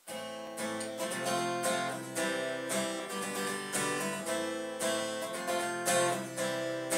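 Acoustic guitar strummed in a steady rhythm, full chords ringing with no singing; the playing starts abruptly at the outset.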